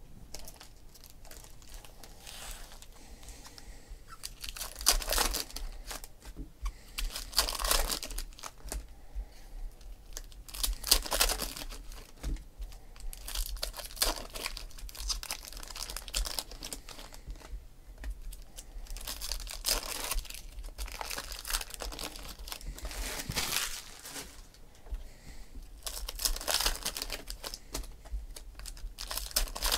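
Foil trading-card pack wrappers crinkling and tearing as packs are opened by hand, with cards handled between. The louder bursts of crinkling come every few seconds.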